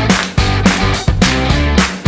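Rock background music with electric guitar over a steady drum beat.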